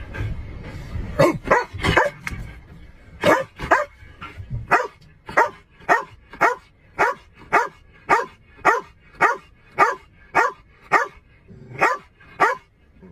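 Police dog barking over and over, settling into a steady run of about two barks a second.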